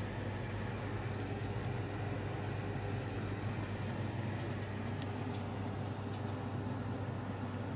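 Steady low electrical hum with a faint hiss from running kitchen appliances, with a couple of light clicks about five seconds in.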